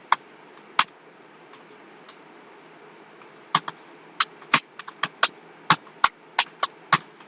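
Typing on a computer keyboard: two keystrokes near the start, a pause of a couple of seconds, then a run of irregular key clicks.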